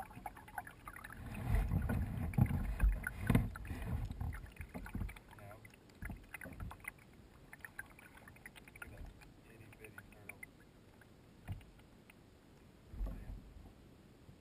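Kayak being paddled: paddle strokes splashing and dripping water, with low thumps and knocks heard through the bow-mounted camera. The strokes are loudest in the first few seconds and again briefly near the end, with scattered small drips and clicks between.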